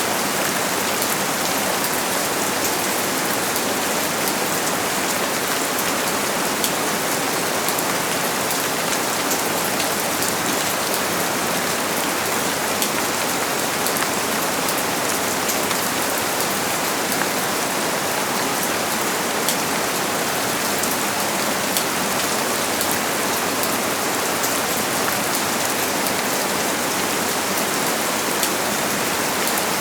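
Steady rain falling and pattering on a surface, an even hiss full of fine drop ticks.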